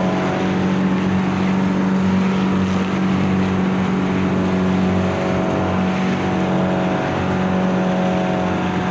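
Outrigger boat (bangka) engine running steadily at cruising speed, with water rushing and spraying along the hull.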